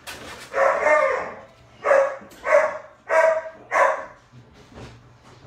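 A puppy barking: five high-pitched barks, the first drawn out longer, then four short ones in quick, even succession.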